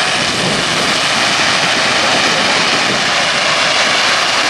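Fireworks firing in a dense, continuous barrage of small sparking effects, heard as a steady rushing hiss with no separate bangs.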